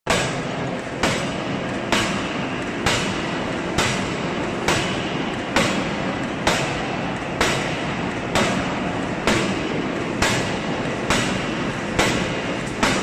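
A power forging hammer striking a red-hot steel bar at a steady pace, about one blow a second, over a constant machinery din.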